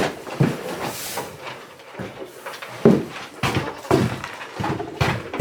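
Hay rustling and feeders knocking as hay is put into goat feeders: a run of irregular knocks and clatter, the sharpest one about three seconds in.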